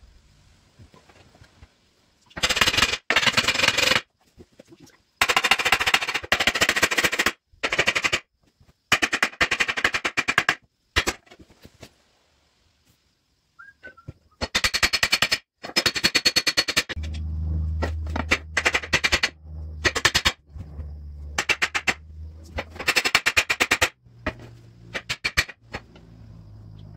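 Pneumatic hammering tool rapping in repeated one-to-two-second bursts with short pauses, working on a Firestone RH-5 split-rim truck wheel. A low steady hum joins about two-thirds of the way in.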